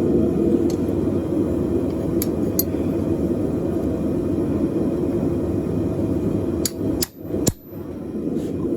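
A steady low roar with a few sharp, ringing metal strikes of a hammer on a chisel on top: two about two seconds in and three close together around seven seconds in.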